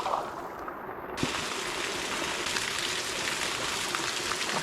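Water running and splashing steadily into a hot spring pool, an even rushing sound with a few small drips and splashes.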